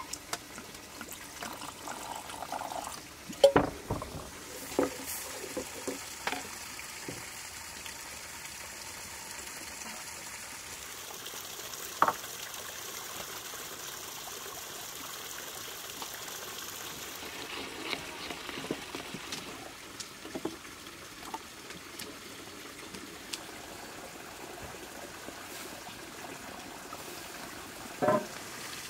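Water trickling and pouring steadily, with a few sharp knocks now and then, the loudest a few seconds in.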